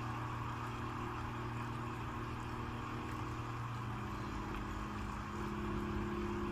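Low steady droning ambience from the anime episode's soundtrack, with a faint hiss; its held tones shift to a higher pitch about four seconds in.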